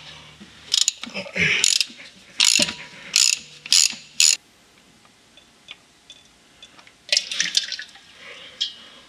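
Ratchet wrench clicking in about five short runs as its socket loosens a manual gearbox drain plug, then a brief cluster of small clicks and rattles about seven seconds in.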